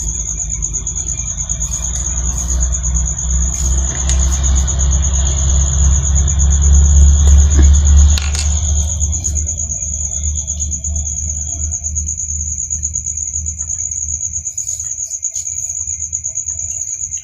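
Steady high-pitched cricket trill under a low rumble that builds to its loudest about eight seconds in, drops off sharply, then fades.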